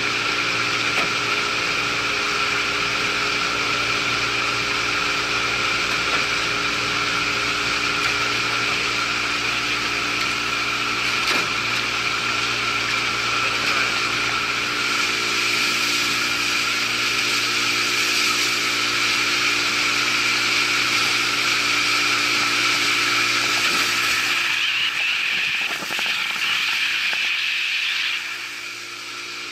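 Boat motor running at a steady speed, a constant mechanical drone with a high whine in it. A few seconds before the end its low hum fades and the sound drops off.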